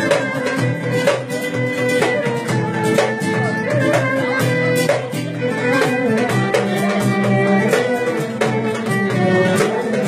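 Instrumental break in a Turkish folk song: a violin carries the melody over a steady percussive beat.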